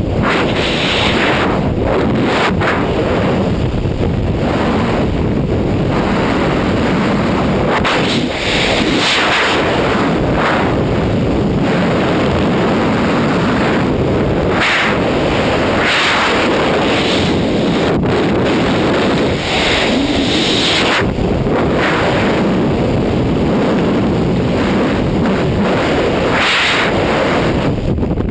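Freefall wind rushing over a skydiver's camera microphone, loud and unbroken, swelling into a harsher hiss every few seconds with a few sharp buffeting knocks.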